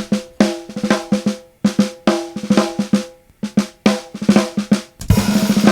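Sampled snare drum from the MINDst drum plug-in played solo: clusters of quick strokes with a ringing drum tone, separated by short gaps, then a fast continuous roll from about five seconds in.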